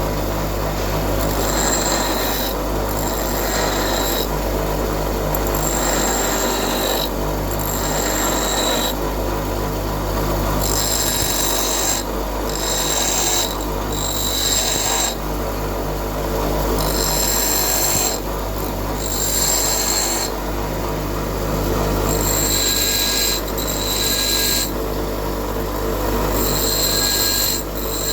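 An electric grinder runs with a steady motor hum while a steel drill bit is sharpened against the wheel. A high-pitched grinding hiss comes in and out, in spells of a second or two, each time the bit is pressed to the wheel and lifted off.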